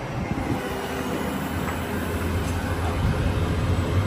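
Heavy NRC rotator wrecker's diesel engine running steadily under load, driving the crane hydraulics as the boom takes up the weight of the truck's front end. The low drone grows a little louder after about three seconds.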